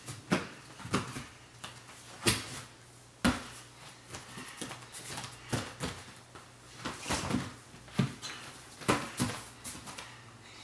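Bare feet and hands thumping and slapping on a folding gymnastics mat as a gymnast lands and pushes off through quick successive skills. The thumps are irregular, about two a second, with the heaviest landings about two and three seconds in.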